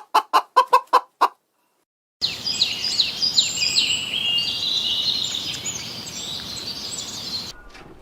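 A chicken clucking about seven times in quick succession. After a short pause, a dense chorus of many high chirps, each falling quickly in pitch, runs on for about five seconds.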